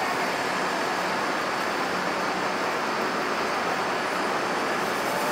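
Steady city street traffic noise, an even rush of passing vehicles with no single event standing out.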